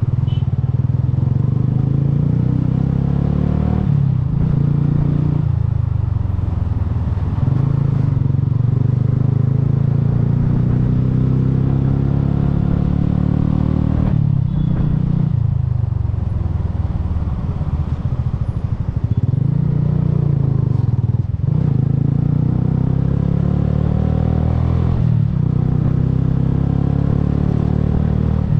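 Bajaj Boxer's single-cylinder four-stroke engine running under way, its revs climbing in long rising sweeps and dropping back sharply several times.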